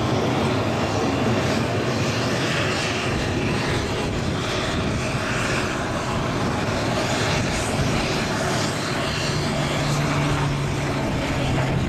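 North American P-51 Mustang's V-12 piston engine and propeller running as the fighter flies overhead, a steady drone with a low engine note that comes through more clearly near the end.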